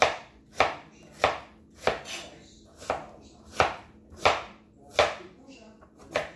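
Knife chopping vegetables on a cutting board: about ten evenly spaced strokes, roughly one and a half a second.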